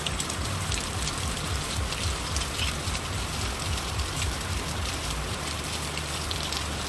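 Heavy rain falling steadily, with many close, separate drop hits over the constant hiss and a low rumble underneath.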